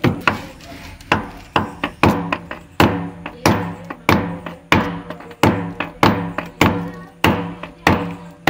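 Background music with a steady percussive beat of about two strikes a second over sustained tones.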